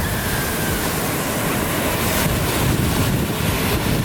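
Wind buffeting the microphone, heard as a gusty low rumble over a steady rush of ocean surf.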